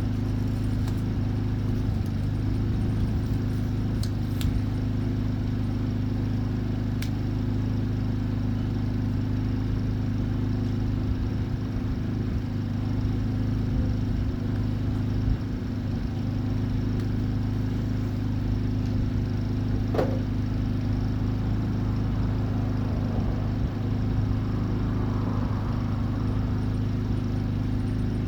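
Steady low machine hum from running shop equipment, with a few faint clicks and one sharper tick about twenty seconds in.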